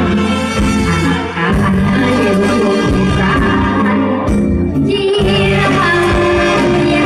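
Live Thai Isan band music played loud through a PA, with a woman singing into a microphone over a steady bass and beat.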